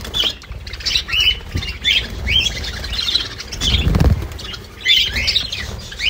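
Budgerigars chattering with quick, repeated short chirps and squawks. A dull low bump about four seconds in.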